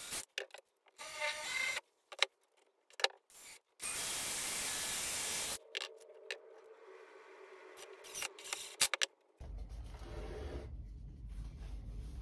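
Cordless drill boring into spruce-pine-fir 2x4 frame pieces: short whirring runs, then a steady run of about two seconds about four seconds in. Clicks and knocks follow as tools are set down on the plywood bench, and a low rumble near the end as the wooden frame is handled.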